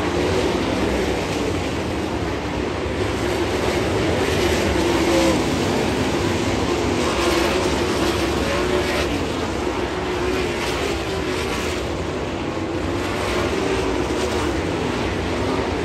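Several winged sprint cars' V8 engines racing around a dirt oval. Their sound is a loud, continuous engine drone that wavers in pitch as the cars go by.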